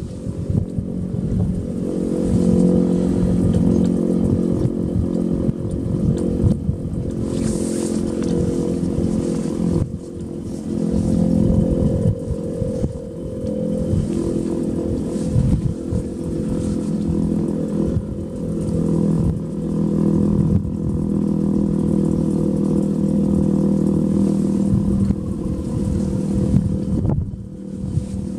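Federal Signal STH-10A dual-tone tornado siren sounding a steady full-alert tone, swelling and fading every few seconds as it rotates. Heavy wind rumbles on the microphone underneath.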